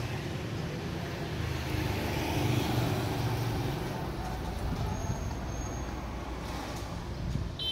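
Street traffic noise: a motorbike engine running, loudest in the first three seconds.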